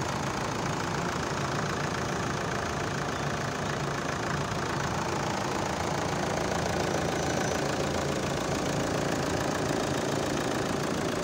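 Renault Mégane II 1.9 dCi 130 turbodiesel four-cylinder engine idling steadily, heard from above the open engine bay.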